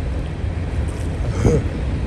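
Wind buffeting the microphone over fast, rushing floodwater, a steady low rumble, with one short thump about a second and a half in.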